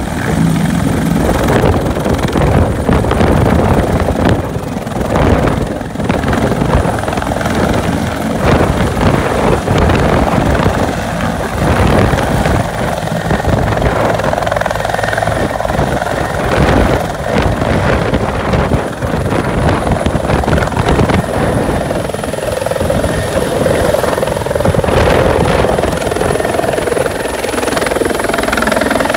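Twin-turbine Bell 412 rescue helicopter at take-off power, its rotor beating rapidly over a steady high turbine whine, as it lifts off and climbs away.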